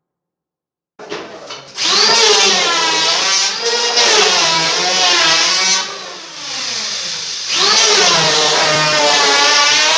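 Electric hand planer starting about a second in and running along the edge of a wooden door, its motor pitch wavering as it cuts. It eases off for a moment past the middle, then speeds up and cuts again.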